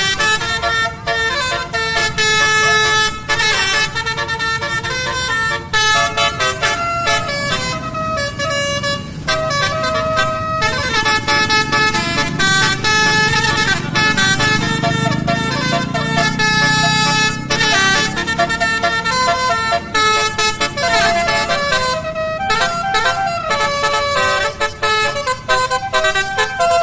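Basuri telolet musical horn, a multi-trumpet vehicle horn, playing a continuous tune of changing notes, loud throughout. A low rumble swells beneath it in the middle.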